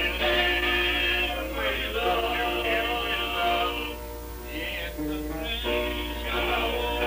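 Men singing on an old, muffled rehearsal recording from about 1954, with nothing above the upper midrange and a steady low hum underneath.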